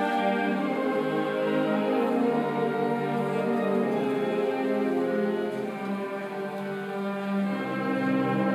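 High school orchestra playing sustained, held notes. The music eases to a softer passage about six seconds in, then low bass notes come in near the end.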